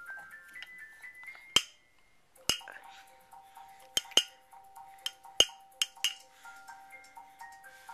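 Electronic baby toy playing a simple beeping tune: a rising run of notes, then two notes alternating over and over. Several sharp clicks and knocks come through it as the toy is shaken and bumped.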